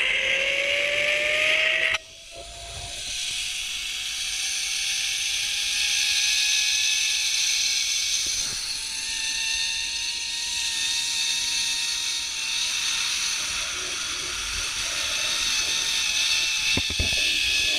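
Zip-line trolley pulleys running along the steel cable: a whine that climbs in pitch over the first several seconds as the rider picks up speed, then holds steady with a slight wobble, over a steady hiss. A louder rush of hiss in the first two seconds cuts off suddenly, and a few clicks come near the end.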